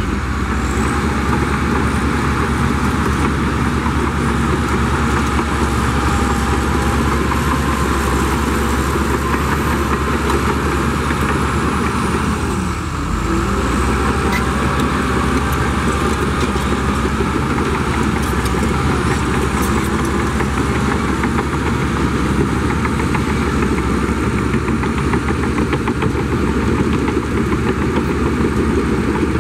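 Heavy diesel engine of earthmoving machinery running steadily, easing off briefly about thirteen seconds in.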